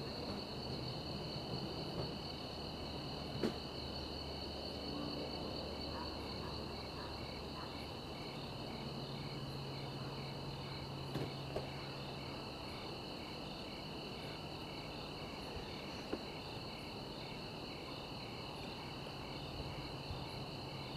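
Crickets chirring steadily in a night chorus, one trill pulsing about twice a second beneath the steady ones, with a few faint knocks now and then.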